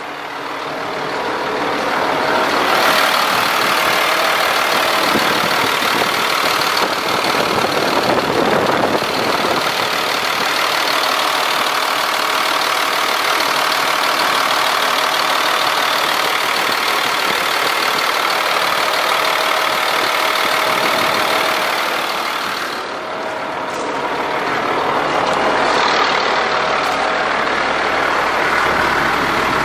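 Caterpillar 3126E inline-six diesel engine of a Ford F750 truck idling steadily.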